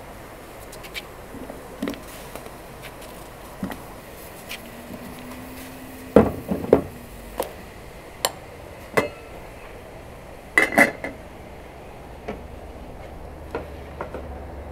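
Dishes and kitchen utensils clinking and knocking in scattered separate strikes, the loudest a cluster about six seconds in and a sharp double knock near eleven seconds.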